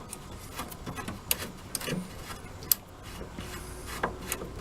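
A screw being backed out of a DLP TV's lamp canister, with scattered light metallic clicks and rattles at irregular intervals.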